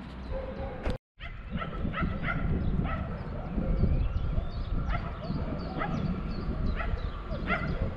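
A dog yapping in short, sharp barks every second or so over a steady low rumble, with a brief dropout about a second in.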